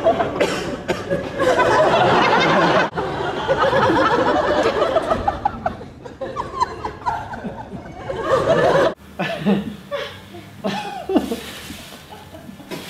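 An audience laughing, many voices overlapping, which breaks off suddenly about nine seconds in and gives way to sparser, single-voice laughs and vocal sounds.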